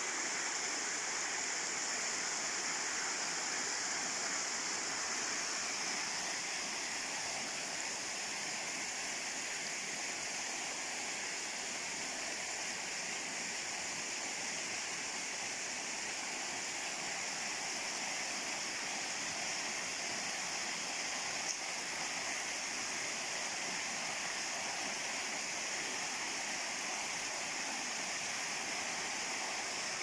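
Stream water cascading over rock slabs, a steady rushing.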